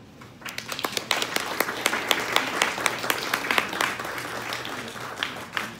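Audience applauding at the end of a talk: many hands clapping, starting about half a second in, fullest in the middle and thinning near the end.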